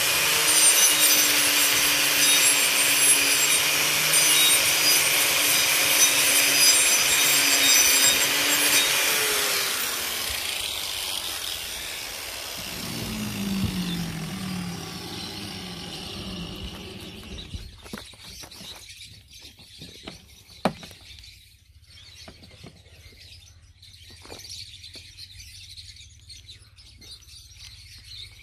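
Makita angle grinder with a disc carving into the dead wood of a Chinese elm trunk: a loud steady grinding with the motor's whine. About ten seconds in the grinding stops and the motor winds down with a falling tone, leaving a quiet background with a few sharp clicks.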